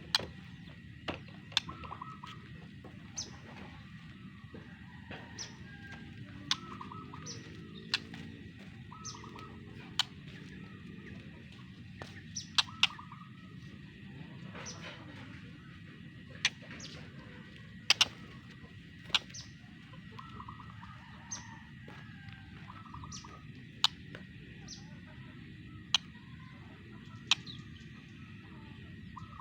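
White-rumped shama (murai batu) giving short chirps, mixed with sharp clicks at irregular intervals, over a steady low background hum.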